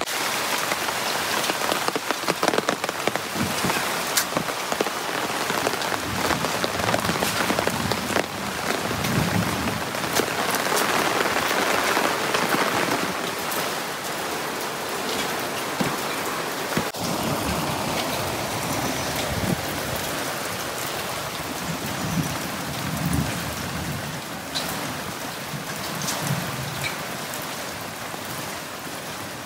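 Heavy rain falling steadily, drops striking an umbrella held overhead, with many scattered sharp taps in the hiss. It eases slightly near the end.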